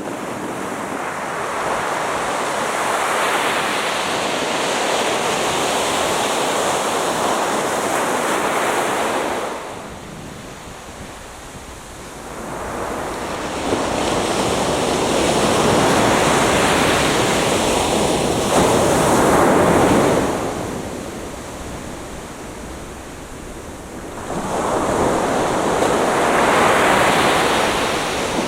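Atlantic Ocean surf breaking on a beach: three waves build, crash and wash in, each lasting several seconds. There is a quieter lull about ten seconds in and another just past twenty seconds.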